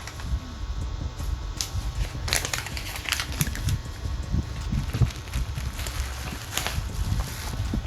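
Packaging being handled and opened: irregular crinkling and crackling rustles, thickest about two to three seconds in and again near the end, over a low handling rumble.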